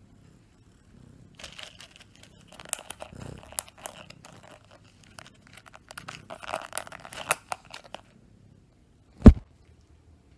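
Small clear plastic container being handled and its lid worked: a run of irregular crackling plastic clicks and crinkles, then a single loud thump about nine seconds in.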